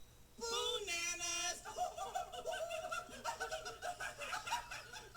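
High-pitched puppet monkey voices: a long squeal, then quick giggling and chattering.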